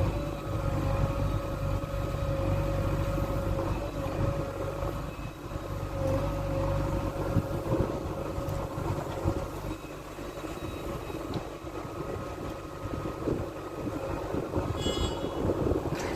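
Diesel engine of a JCB 3DX backhoe loader running steadily as it works, with a constant whine over the engine note. A brief high-pitched tone sounds near the end.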